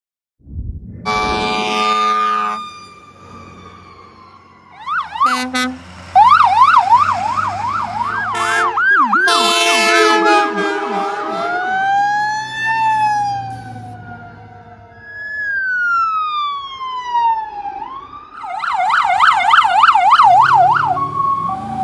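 Emergency vehicle sirens passing, switching between a slow rising-and-falling wail and a fast yelp. Short horn blasts sound in the first few seconds.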